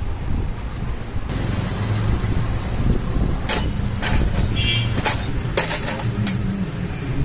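A steady low rumble of a vehicle engine, with several sharp clicks and knocks in the second half.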